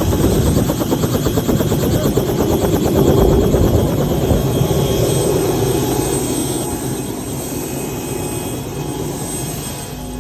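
Robinson R66 turbine helicopter running, with a steady rapid rotor chop that eases a little in level over the last few seconds.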